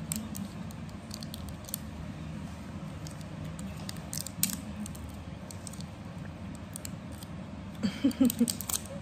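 Scattered small clicks and crinkles of a toddler fiddling with a small piece of plastic, over a low background murmur. A short, louder burst comes near the end.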